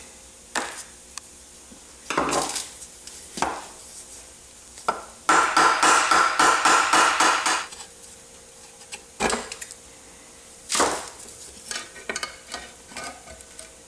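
A soft-faced mallet tapping rapidly on the aluminium right-hand side cover of a Honda CB450 engine to loosen it: about ten quick blows in a couple of seconds midway. Scattered single knocks and clatter of tools and parts come before and after.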